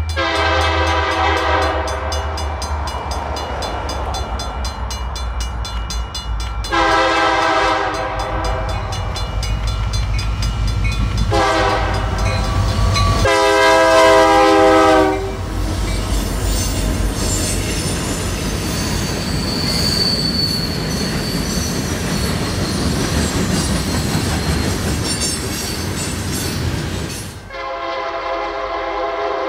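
Diesel freight locomotive's multi-chime air horn sounding the grade-crossing signal, long, long, short, long, over the low rumble of the engines working upgrade. The train then rolls past with steady wheel and car noise, and the horn sounds again near the end.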